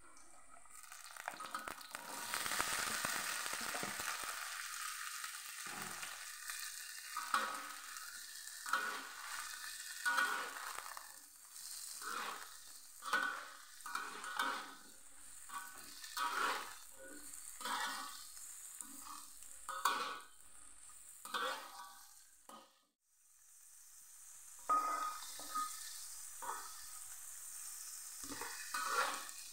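Long beans dropped into hot oil in a wok with a burst of sizzling, then a metal spatula stirring and scraping them in repeated strokes about once a second over a steady sizzle, which drops away briefly near the three-quarter mark.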